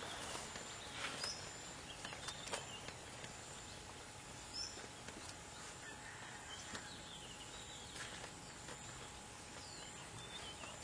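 Faint outdoor background with scattered short, high bird chirps and calls, and a few soft clicks.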